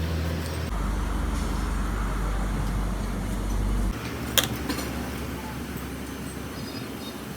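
Steady low hum of factory machinery. It changes pitch abruptly twice, and there is one sharp clank about four seconds in.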